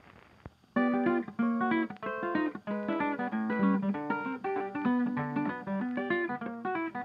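Background music: a brisk plucked guitar tune starts about a second in, after a brief near-quiet moment.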